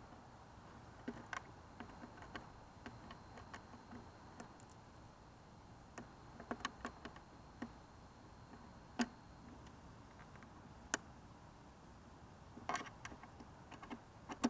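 Cable plugs clicking and tapping as they are fitted and handled at the connector panel of a magnetometer console: scattered small, sharp clicks at irregular intervals. A faint high steady tone runs through the first half.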